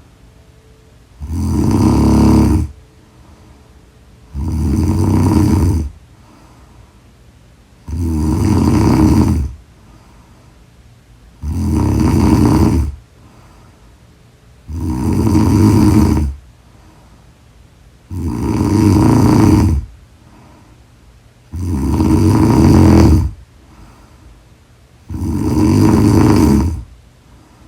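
A woman snoring loudly in a steady rhythm: eight long snores, one about every three and a half seconds, with quiet breathing in between.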